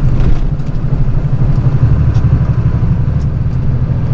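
Engine of a flatbed straight truck running steadily while driving, heard from inside the cab as a steady low drone, with a few faint ticks scattered over it.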